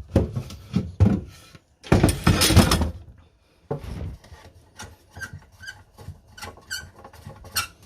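A boat's ice chest top and cabin panel being worked loose by hand: a few knocks, a loud scraping rub about two seconds in, then a run of short squeaks and clicks as the fitting is pried and wiggled.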